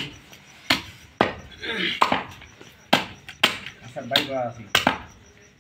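Butcher's cleaver chopping beef on a wooden stump chopping block: about five sharp strikes at uneven spacing, with voices in the background.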